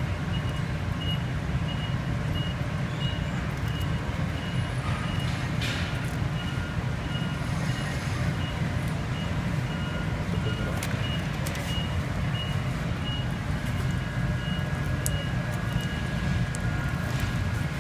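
A vehicle's reversing alarm beeping at an even pace of about two beeps a second over a steady low rumble, stopping about 16 seconds in.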